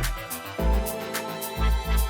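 Background music: sustained synth chords over a deep bass pulse, with a steady beat of light hi-hat ticks.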